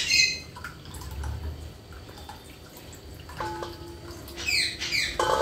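Red cooking oil dripping and trickling from a tilted pressure cooker into a bowl as it is drained off cooked mutton, with a sharp knock at the start and a few short drips near the end.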